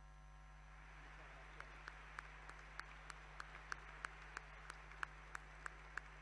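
Faint applause that swells about a second in, with one nearby pair of hands clapping steadily, about three claps a second, over the general clapping.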